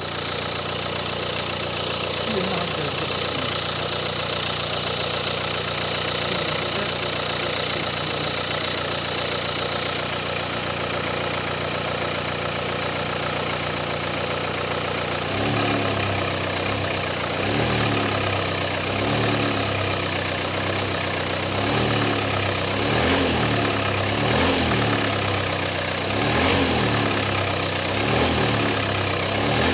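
Car engine idling with a knocking noise. The title attributes the knock to the engine having sat unused and says it will fade as the engine runs. About halfway through, the engine note begins to rise and fall regularly, roughly once a second.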